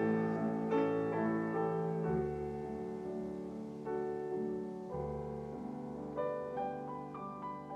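Slow, gentle solo piano music in a classical style, with chords struck about once a second and the loudness slowly falling away.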